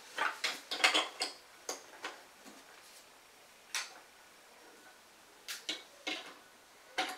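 Plastic LEGO Duplo bricks clicking and clacking as they are handled and pressed together. A quick run of clicks in the first second, then scattered single clicks.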